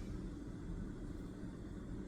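Steady low rumble with a faint hiss: room tone.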